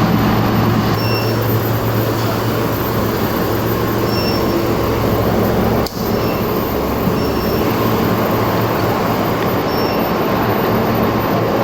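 Induction melting furnace running: a steady loud mechanical hum and rush with a thin high whine above it. A faint short tone recurs about every three seconds, and the sound drops briefly about halfway through.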